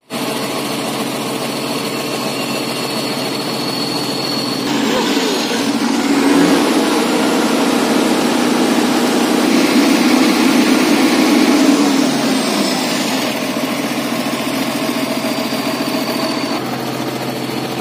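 Diesel engine of a concrete mixer truck running steadily, its revs raised for several seconds in the middle and then easing back.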